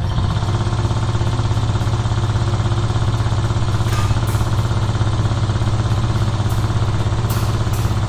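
Engine running steadily with a fast, even throb, after coming up to speed just as it begins.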